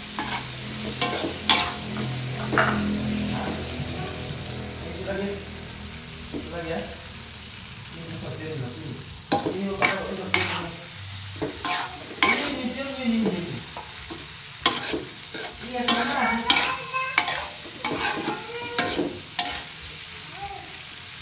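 Metal spatula stirring and scraping a sambal of eggplant and petai beans around a steel wok, with irregular clinks and scrapes against the pan over the sizzle of the frying food.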